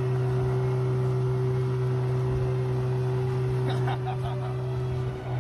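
A 15 hp outboard motor running at steady high throttle, driving an inflatable boat, with the hiss of water from the wake.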